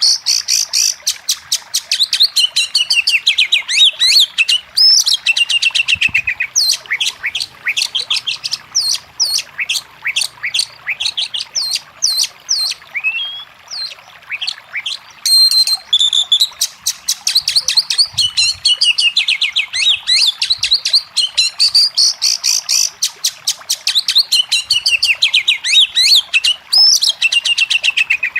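Oriental magpie-robin (kacer) singing in full, fast song: a loud, unbroken stream of rapid chirps and falling whistled sweeps, easing briefly about halfway through before picking up again.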